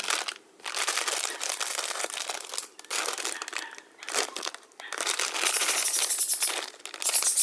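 Foil-lined plastic snack packet crinkling as it is torn open and handled, in several stretches with short pauses; in the later part the packet is tipped to pour the coated roasted peanuts out.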